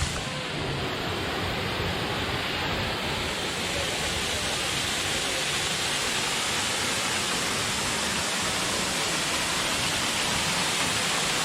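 A waterfall pouring into a pool, a steady rushing roar of falling water that grows slightly louder.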